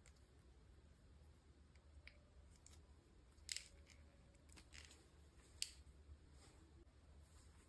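Faint, sparse sharp clicks and snips from hands working small plastic packaging and miniature pieces during an unboxing, over a low hum. Two clicks, about three and a half and five and a half seconds in, are the loudest.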